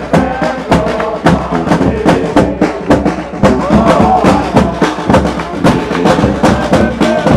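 Live street brass band playing an upbeat tune: tuba and trombone over a steady drum beat of about three strikes a second.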